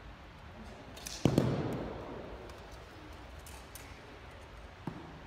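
Arrows being shot from compound bows: a sharp thwack about a second in, echoing on through the gym, then a fainter click near the end.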